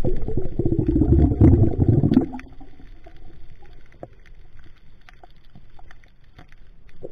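Water noise picked up by an action camera in its underwater housing: a loud low rumbling and gurgling for the first two seconds or so as the diver moves through the water, then a quieter hiss with scattered sharp clicks and crackles of the reef.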